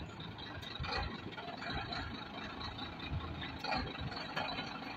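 Heavy truck engine running at low revs as the laden truck creeps through deep mud ruts, with a few brief knocks about a second in and again near the end.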